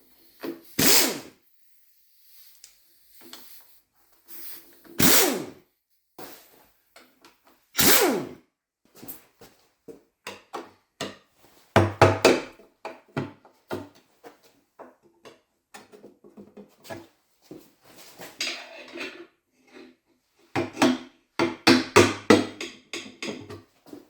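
A power tool runs in three short bursts a few seconds apart, undoing the bolts of an engine's timing case cover. These are followed by repeated clicking and metal clatter of bolts and hand tools being handled on the bench.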